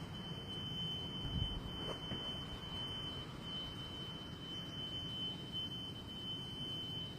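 A steady high-pitched whine holding one pitch over a low rumbling noise: the unexplained noise from the sky that the listener says is getting louder and almost hurts the ears.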